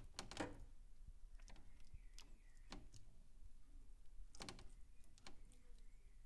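Plastic slotted spatula poking into a tray of baked vegetables and minced meat: a few soft scrapes and taps, the loudest about half a second in, another two near the middle and end.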